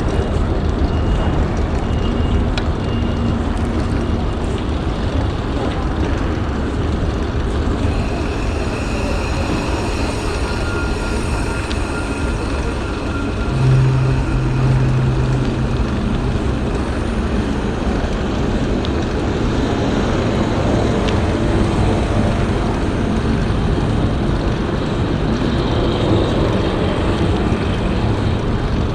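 Steady low rumble of trains at a railway station, with a low steady tone sounding for about two seconds about halfway through.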